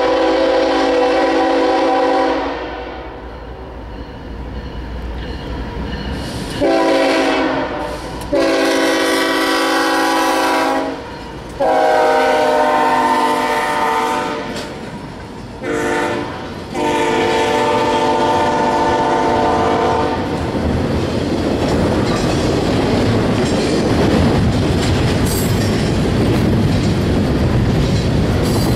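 A CSX GE ES44AH diesel locomotive leading an intermodal freight sounds its multi-chime air horn in a series of long and short blasts. After the last blast ends about 20 seconds in, the wheels of the double-stack well cars clatter steadily over the rail joints as the train rolls past.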